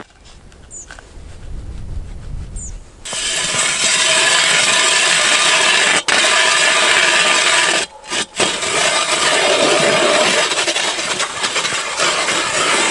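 Hand ice auger drilling a hole through river ice: a steady grinding scrape of the blades cutting ice as the crank is turned. It sets in about three seconds in and breaks off briefly a couple of times around the middle.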